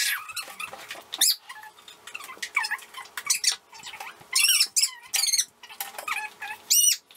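High-pitched, squeaky chirping in short speech-like bursts with gliding pitch: children's voices sped up so that they squeak like chipmunks.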